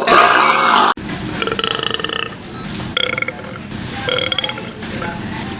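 A man belching loudly, cut off abruptly about a second in. After that, against a quieter background hiss, come three shorter pitched vocal sounds.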